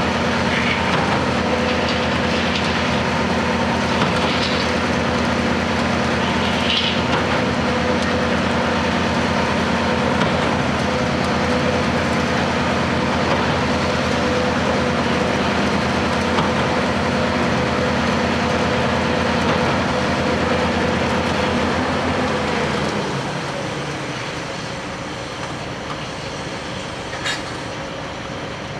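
Heavy construction machinery with a diesel engine running steadily, with a few short high squeaks in the first seconds. About 23 seconds in, the engine note drops away and the sound gets quieter, with a single sharp click near the end.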